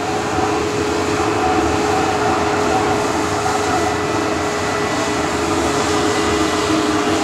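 Boeing 747-400 jet engines on final approach: a steady rushing drone with a steady whining tone.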